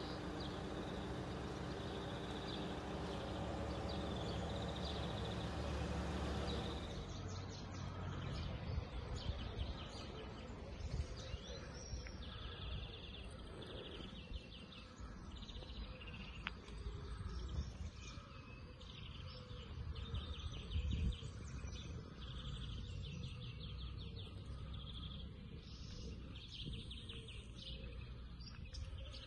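Birds chirping and singing, with many short repeated calls, over a faint low rumble. For the first several seconds a steady rushing noise covers everything, then it cuts off suddenly.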